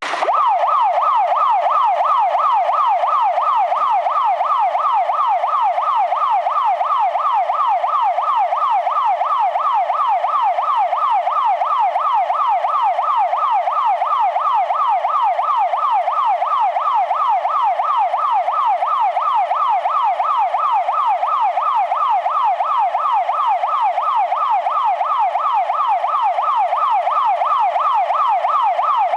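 Fire engine siren running a fast yelp: one loud tone sweeping rapidly up and down over and over at a steady rate.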